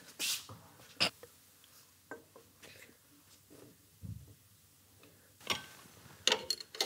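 Quiet handling sounds of a plastic motor-oil bottle and a glass funnel while oil is poured into the motorcycle: scattered light clicks, a dull thump about four seconds in, and a few sharper clacks near the end.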